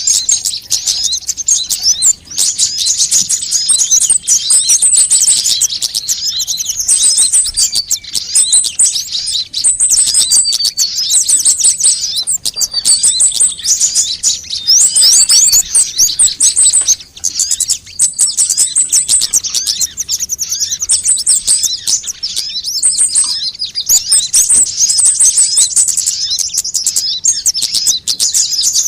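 Dense, high-pitched chirping and twittering of sunbirds: many rapid notes overlapping, with short thin trills repeating every second or two.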